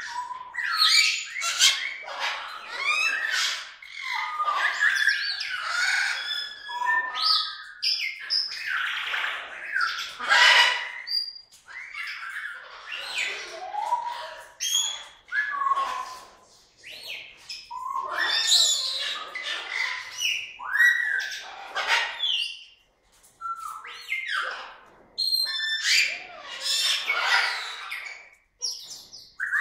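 Goffin's cockatoo calling: a busy string of short squawks and chirpy notes that slide up and down in pitch, with brief pauses between bursts.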